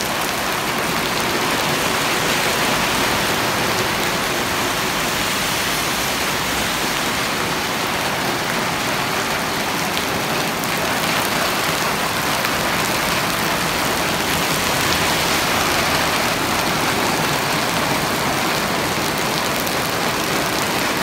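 Rain falling steadily on wet pavement, an even, unbroken hiss.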